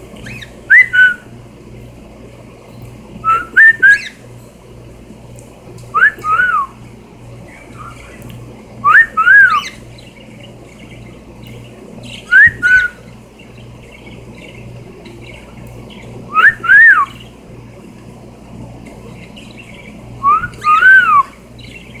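Cockatiel whistling: seven short phrases of up-and-down gliding whistled notes, one about every three seconds.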